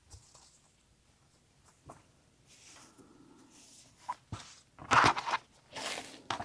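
Fabric and an acrylic quilting template being shifted and handled on the table: scattered light taps and rustles, with a short, louder scraping rustle about five seconds in and another just before the end.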